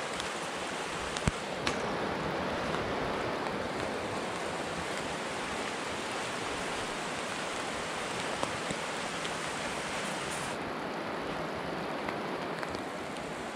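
Steady rushing of a forest stream, an even hiss of flowing water that thins a little in the highest range about ten seconds in. Two sharp taps a little over a second in, the first the loudest moment.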